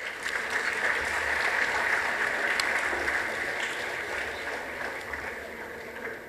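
Audience applauding: dense, steady clapping that slowly dies down over the last couple of seconds.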